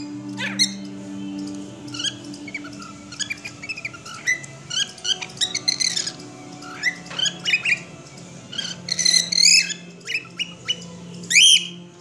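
Cockatiel whistling and chirping: a quick string of short notes that sweep up and down in pitch, with louder calls about nine seconds in and again just before the end.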